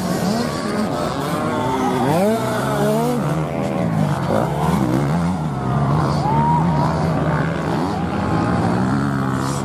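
Several motocross bike engines revving on and off the throttle, their pitch repeatedly rising and falling as the bikes race around the dirt track.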